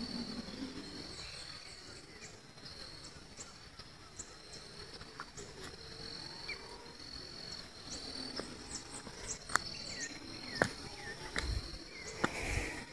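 Insects chirping in the forest: a steady, high-pitched pulsing trill, with a few short sharp clicks in the second half.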